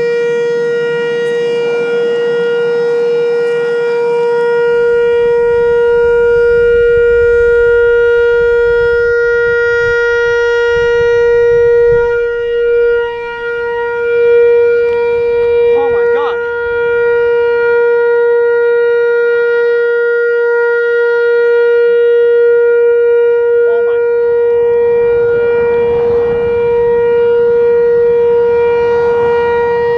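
Whelen WPS-4004 electronic outdoor warning siren sounding its steady Alert signal: one loud, unwavering tone with no rise or fall in pitch.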